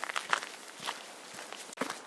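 Footsteps crunching on gravel, several separate uneven steps.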